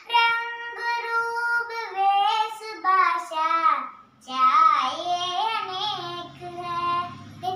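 A young girl singing solo, with long held notes and gliding pitch.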